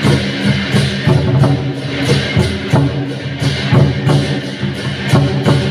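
Music with a steady beat, about three beats a second, over sustained pitched instruments.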